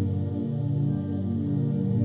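Ambient new-age meditation music: a steady drone of layered, sustained low tones.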